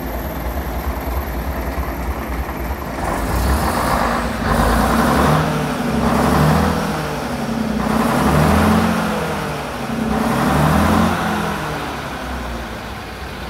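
Leyland six-cylinder diesel engine of a vintage London double-decker bus idling, then revved up and let fall back four times in a row before settling to idle near the end.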